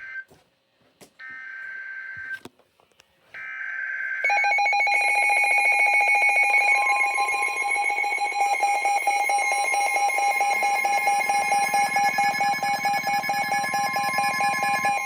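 Emergency Alert System header: two short warbling bursts of SAME data tones, then the loud, steady two-tone EAS attention signal, which starts about four seconds in and holds.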